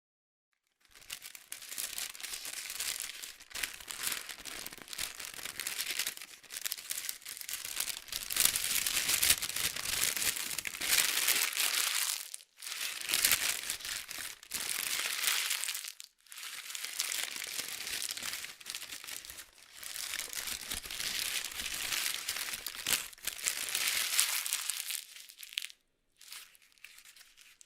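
A sheet of paper being crumpled and stretched out again by hand: dense crackling in several long stretches, with brief pauses between them.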